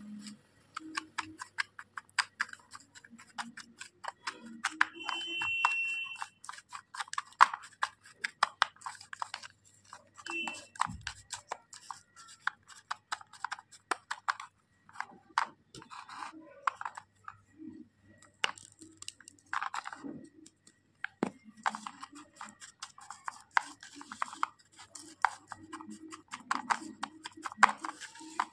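A small plastic spatula scraping and tapping against a plastic toy pot while mashing wet crushed slate-pencil powder into a gritty paste. The scrapes and clicks come quickly and irregularly.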